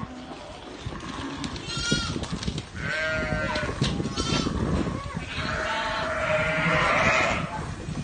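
Sheep bleating: several quavering bleats, the longest near the end, over scattered low thuds.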